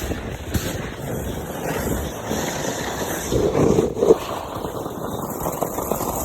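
Sled sliding over snow, a steady scraping rush with wind buffeting the phone's microphone, and a thump about four seconds in.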